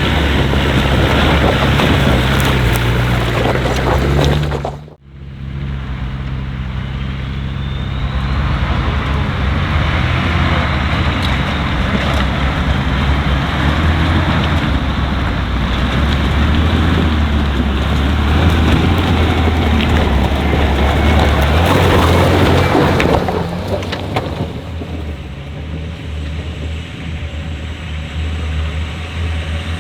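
Off-road 4x4's engine running, with a dense rushing noise over it. The sound cuts out abruptly about five seconds in, then picks up again, and the rush eases off after about twenty-three seconds while the engine carries on.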